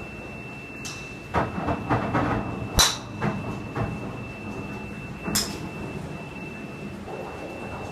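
Golf driver striking the ball with one loud sharp crack about three seconds in, with several fainter sharp clicks of other shots around it. A steady high whine runs underneath.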